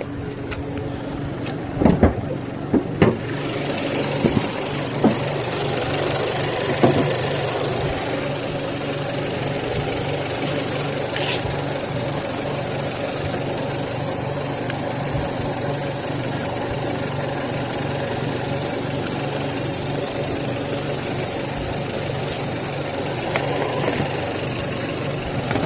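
A motor or engine running steadily with a hiss, after a few sharp knocks about two to three seconds in.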